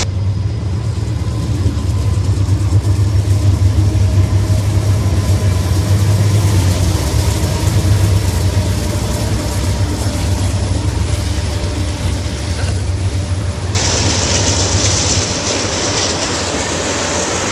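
Norfolk Southern diesel freight locomotives running past on the tracks, a loud, deep, steady engine drone with rail noise over it. The sound changes abruptly about three-quarters of the way through.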